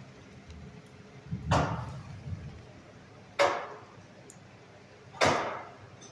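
Water dripping from a leaking ceiling: three sharp drops land at a steady pace about every two seconds, each with a short ringing tail.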